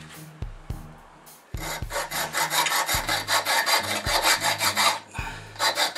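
Hacksaw cutting grooves into a steel footpeg clamped in a vise: quick rasping strokes, about four or five a second. The strokes start about a second and a half in, stop briefly near the end, then resume.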